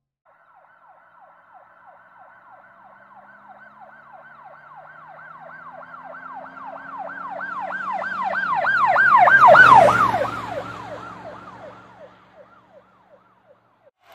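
Emergency vehicle siren in a fast yelp, about three rising-and-falling wails a second, growing louder to a peak about nine and a half seconds in, then dropping slightly in pitch and fading as it passes by, with a low engine hum passing along with it.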